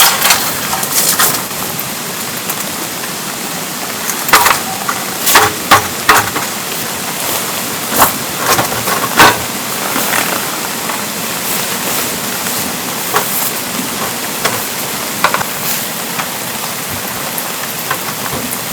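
Steady rain, with heavy drops landing as sharp, irregular taps.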